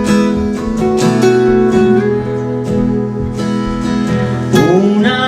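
Acoustic guitar strummed in steady chords as an instrumental passage between sung lines of a song.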